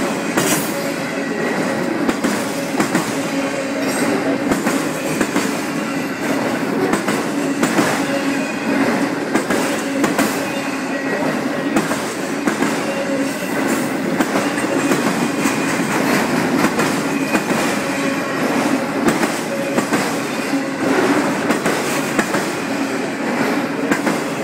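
CN freight train rolling past close by: a steady rumble of steel wheels on rail, with repeated clacks as the wheels cross rail joints.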